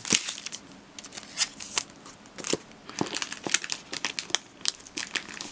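Clear plastic bag crinkling and crackling in irregular little bursts as the trading cards packed in it are handled.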